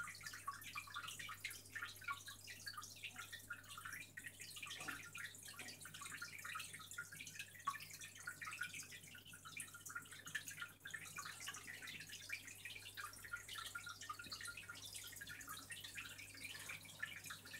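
Faint aquarium water trickling and bubbling in a constant patter of small drips and bubbles, over a steady low hum.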